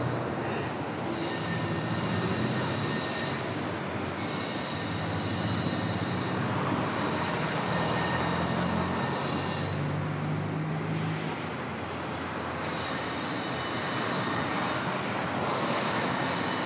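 A steady, noisy ambient rumble with faint humming tones that come and go in slow waves.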